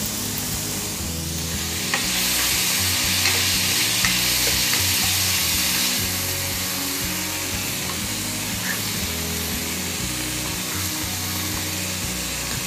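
Chicken strips and sliced mushrooms sizzling in oil in a frying pan, the sizzle louder for a few seconds from about two seconds in, with occasional light clicks of a spatula stirring and scraping against the pan.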